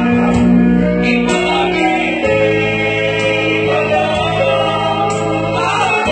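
Small group of women singing a Christian worship song through microphones, over sustained instrumental accompaniment; the chord changes about two seconds in.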